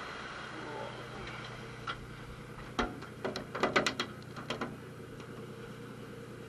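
A boat's engine runs steadily, with a short, irregular run of sharp knocks and clicks in the middle, the loudest about four seconds in.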